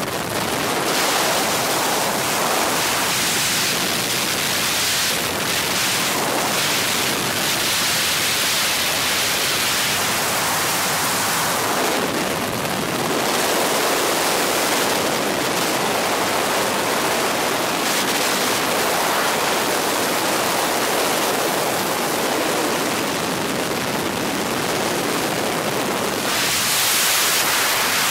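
Steady rushing noise of a helicopter in flight, heard from inside the cabin: engine, rotor and wind blended into a dense, even hiss.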